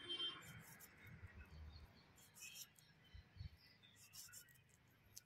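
Faint, soft scraping of food being sliced against an upright fixed knife blade, a few short strokes over near-silent background.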